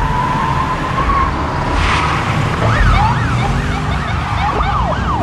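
Police car sirens yelping in quick rising and falling sweeps, several overlapping, starting about two and a half seconds in, over a steady low rumble of vehicles; a single steady tone sounds in the first second.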